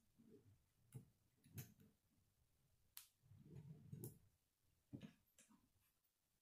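Faint, sparse clicks of K'nex plastic rods and connectors being handled and fitted together, about five in all, with a short spell of soft handling noise near the middle.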